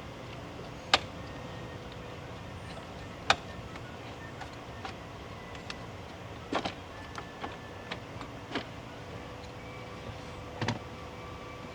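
Sharp plastic clicks and knocks, about five spread out, as the top tier of a pickup's under-hood fuse box is unclipped and lifted off its base, over a steady low hum.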